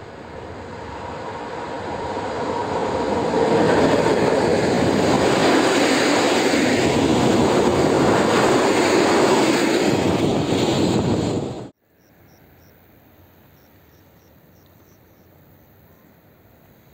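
Freight train running past close by: a rising rush and rumble of wagons on the rails that holds loud and steady, then cuts off suddenly about twelve seconds in. Crickets chirp faintly after the cut.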